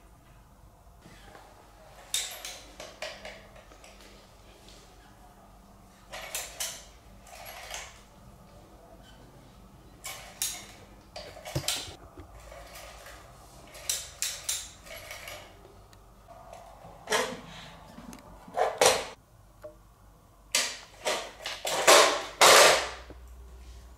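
Plastic cat toys clattering and knocking as cats bat at and pull them: scattered clicks, rattles and short scrapes, louder and more frequent in the last several seconds.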